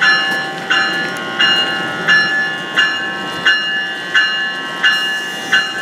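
Locomotive bell of an NJ Transit ALP-45DP dual-mode locomotive ringing steadily, about three strikes every two seconds, over the steady hum of the standing locomotive.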